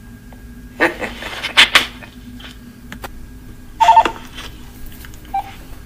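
Telephone line sounds as a call connects: loud clicking and crackling about a second in, then a short two-tone beep near four seconds and a fainter beep near the end, over a steady line hum.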